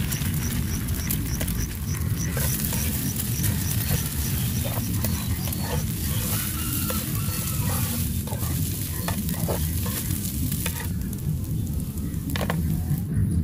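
Egg and chopped garlic sizzling in oil in a cast iron skillet, with a spatula scraping and tapping the pan as the egg is broken up and scrambled; the clicks come mostly in the middle of the stretch.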